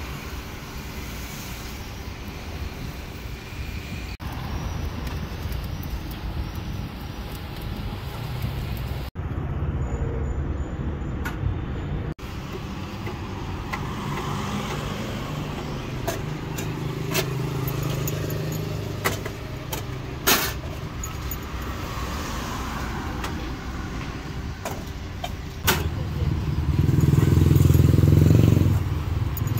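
Steady roadside traffic, with scattered sharp clinks of aluminium woks, lids and utensils being handled. A passing vehicle's loud low rumble swells and fades near the end.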